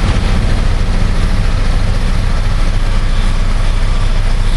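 Heavy diesel earthmoving machinery running: a loud, steady, low engine drone with a fast even pulse.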